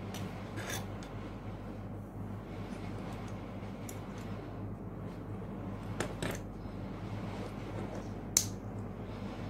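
Plastic model kit parts being handled and pressed together: scattered small plastic clicks, with one sharp snap near the end, over a steady low hum.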